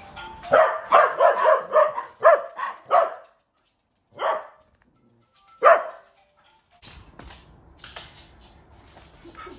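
Small senior Maltese barking in alarm at someone creeping up: a quick run of eight or nine sharp, high barks, then two single barks a second or so apart, then quiet.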